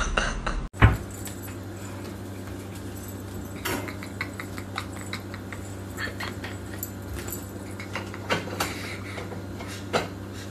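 A dog play-wrestling with a cat on carpet: scattered light clicks and jingles, typical of the dog's collar tags, over a steady low hum. There is one loud thump about a second in.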